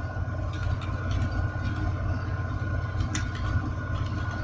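Computer keyboard keys clicking a few times as a word is typed slowly, over a steady low hum.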